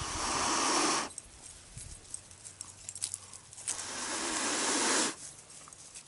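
A person blowing long breaths into a smouldering tinder bundle to bring the ember up to flame: two long airy blows, the second, a little under four seconds in, the longer.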